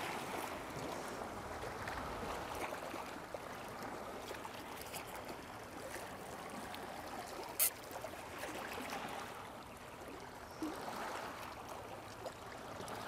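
Small waves washing steadily against a rocky shoreline, with one sharp click about halfway through.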